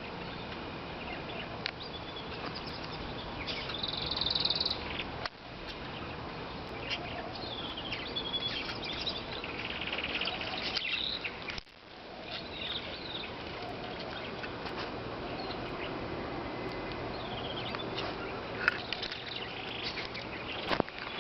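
Caged canaries and lovebirds chirping and singing in an aviary: many short calls and trills overlapping, with a dense high trill about four seconds in.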